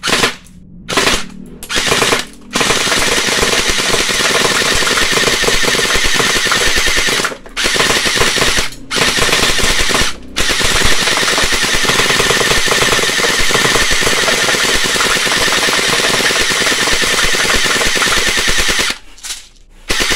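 Automatic pellet gun loaded with metal BBs firing full-auto: three short bursts, then long runs of rapid fire broken by a few brief pauses, stopping about nineteen seconds in.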